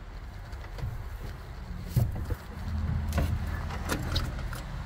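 Clicks and knocks of a Kenworth W900 truck's cab door and its chrome paddle latch being handled, the loudest a sharp knock about two seconds in, with a few lighter clicks later. A low steady hum runs underneath.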